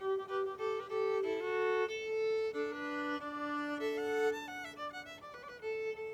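A violin playing a slow melody, often sounding two notes at once, with long held notes that give way to a run of quicker notes about four seconds in.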